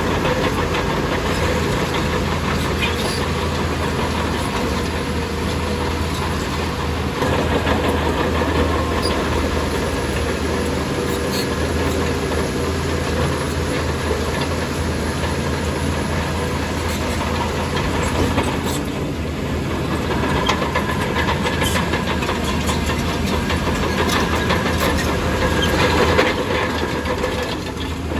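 Crawler bulldozer's diesel engine running steadily under load, with the clank and clatter of its steel tracks and occasional sharper metallic knocks.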